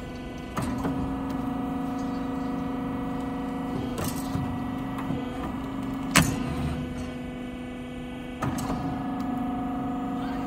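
CNC pipe bending machine running, with a steady motor hum and whine, broken by four sharp metallic clanks as its clamps and bend head move; the loudest clank comes about six seconds in.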